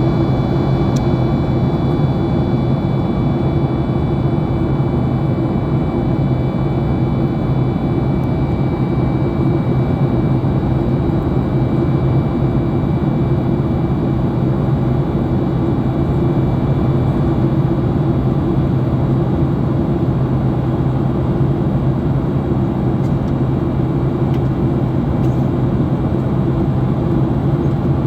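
Steady low drone inside the cabin of a Boeing 737 MAX 8 in its climb, from its CFM LEAP-1B engines and the air rushing past the fuselage.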